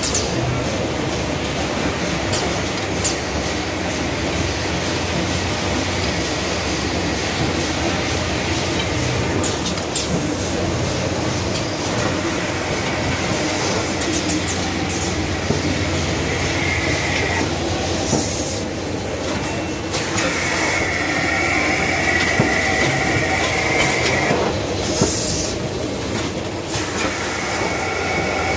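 Automatic toilet paper bundle packing machine running, with a steady mechanical clatter and hum from its conveyors and pushers. A high whine comes and goes about four times.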